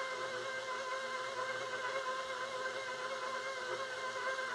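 A 6-quart stand mixer running at a steady speed, a constant motor hum with a whining tone, as it mixes chopped pecans into butter cookie dough.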